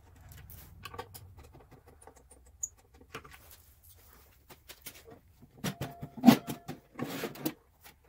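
Scattered small clicks and scratches of a screwdriver working the last screws out of the bottom of an electric space heater's wooden cabinet. About six seconds in come louder clicks and scraping as the sheet-metal inner assembly is slid out of the box.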